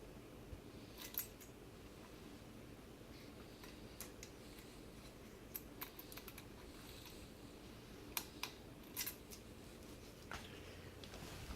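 A 52-inch Litex ceiling fan running on a floor test with a faint, steady low hum, while about eight sharp clicks and ticks come at irregular times.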